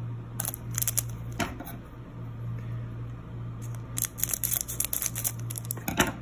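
Foil wrapper of a Pokémon Vivid Voltage booster pack crinkling and tearing open, a dense crackle in the last two seconds after a few sharp ticks of handling early on, over a steady low hum.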